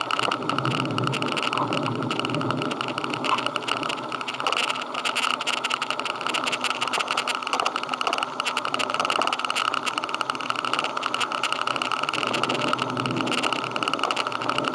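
Steady running noise of a motor vehicle, a continuous engine drone with road or wind noise that barely changes.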